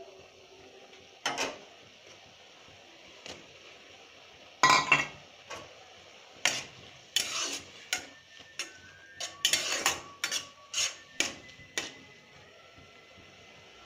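A metal spoon knocking and scraping against a non-stick pan as noodles are stirred, in scattered strokes that come thick and fast in the second half, over a faint steady hiss.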